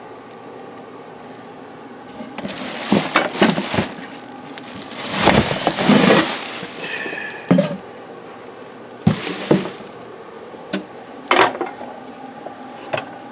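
Packaging handling as a miter saw is lifted out of its cardboard box: plastic and cardboard rustling and scraping in a few irregular bursts, then several short sharp knocks as the saw's plastic parts bump around.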